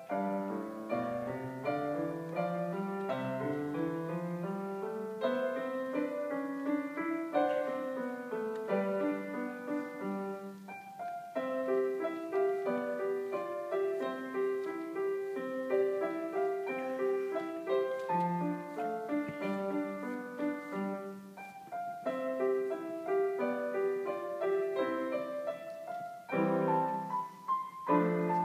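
A grand piano played solo, a classical-style piece: rising runs climbing from the bass in the first few seconds, then a flowing line of steady repeated notes and chords, with louder chords near the end.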